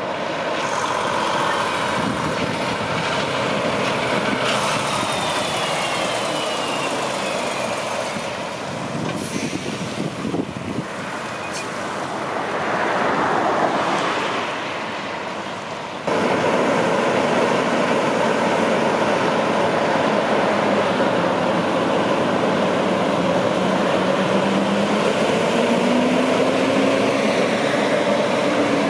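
Highway traffic: a tank truck approaching and a pickup truck driving past. From about halfway it gets louder, with a tractor-trailer's diesel engine running as the rig pulls out and picks up speed, its pitch rising and falling near the end.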